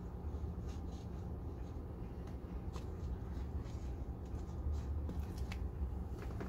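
Faint rustling and a few light clicks of hands handling soil and seedlings in cut plastic-bottle pots, over a steady low rumble.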